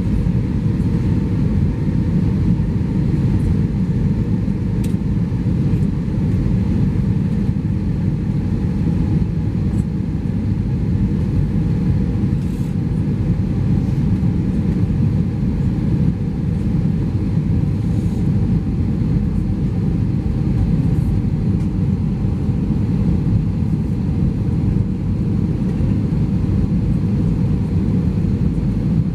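Steady low rumble of an Airbus A320-214's cabin heard from a window seat behind the wing: the engines at reduced power and the rush of air over the fuselage during the descent to land.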